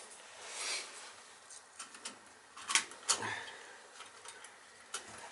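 A brief soft hiss, then a few small clicks and knocks of tools and metal parts being handled while a boiler control is worked on.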